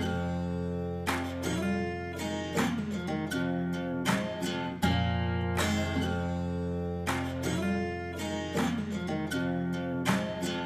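Background music: strummed acoustic guitar chords over a steady bass.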